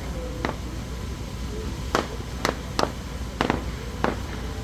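Aerial firework shells bursting: about six sharp bangs at irregular intervals, two of them close together near the middle.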